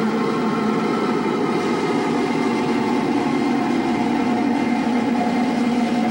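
Vintage 1968 Philips Stabilimatic valve TV's loudspeaker playing a science-fiction episode's soundtrack. It is a steady, dense rumbling sound effect with a few held tones and no speech.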